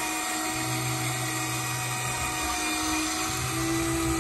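Outboard motor running at low speed, a steady drone whose pitch shifts slightly.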